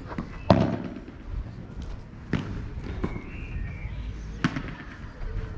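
Padel ball being struck by solid padel rackets and bouncing during a rally: about four sharp pops a second or two apart, the loudest about half a second in.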